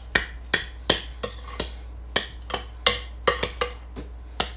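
A spoon stirring snow mixed with milk and sugar in a glass mixing bowl, knocking and scraping against the bowl's side with sharp clicks at about two a second, unevenly spaced.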